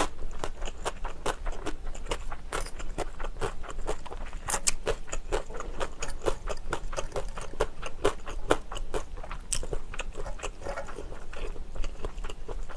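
Close-miked chewing of creamy spaghetti, a quick run of wet mouth clicks and smacks. A metal fork scrapes and twirls noodles on the plate.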